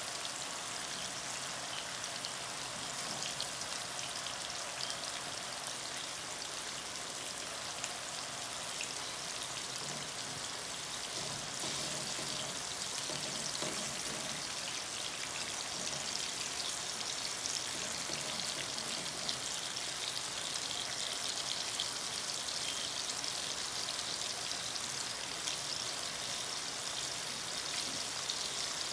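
Thin-sliced potatoes frying in hot oil in a pan: a steady sizzle full of fine crackles.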